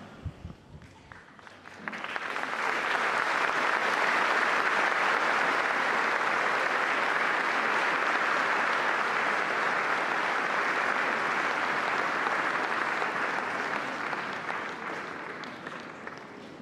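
Crowd applauding. The applause breaks out about two seconds in, holds steady, and dies away near the end.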